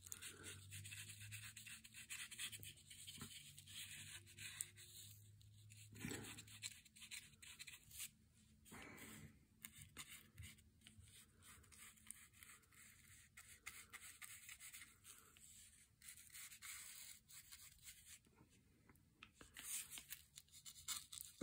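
Faint, scratchy strokes of a No. 9 flat watercolor brush rubbing over cardboard, many short strokes in a row.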